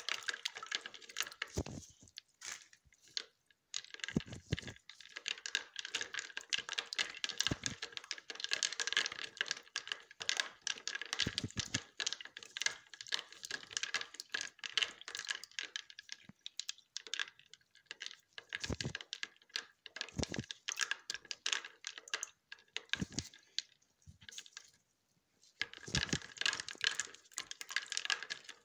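A utensil stirring ice in a plastic container: rapid clicking and scraping against the container's walls, in runs broken by short pauses.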